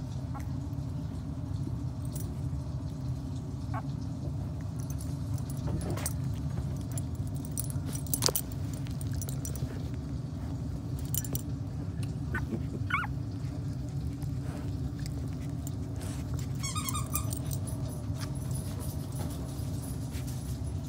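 Two-week-old miniature pinscher puppies giving a few short, high squeaks and whimpers, with a quick string of squeaks late on. Scattered light clicks and one sharper knock about eight seconds in, over a steady low hum.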